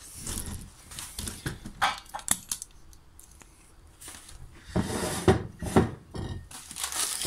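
Handling noises around a large glass jar of cornelian cherries: a paper sugar package rustling and a hand moving among the berries, with a few louder short sounds close together about five seconds in.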